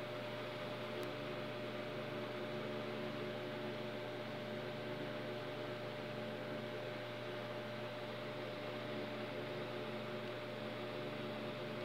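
Steady background hum with several fixed tones over an even hiss, like an appliance or fan running, with one faint tick about a second in.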